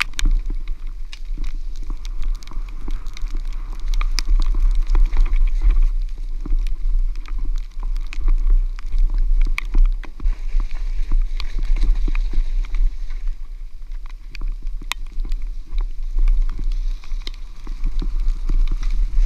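Mountain bike descending a rough forest singletrack at speed: constant rattling and clattering of the bike over the bumpy trail, with many sharp knocks, under a heavy rumble of wind on the microphone.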